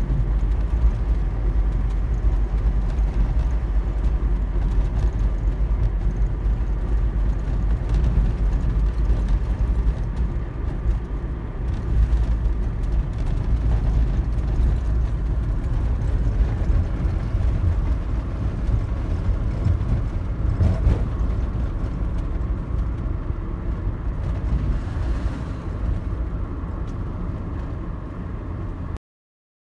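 Steady low rumble of a car being driven, its tyre and engine noise heard from inside the cabin, cutting off abruptly near the end.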